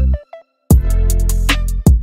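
Background music with a deep bass line and a drum beat. It drops out for about half a second near the start, then comes back in.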